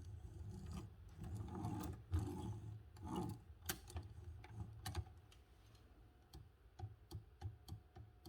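Faint clicks, knocks and rubbing from the levers and mechanism of an antique Erika folding typewriter being worked by hand. The handling is busier in the first half and gives way to a few scattered light ticks.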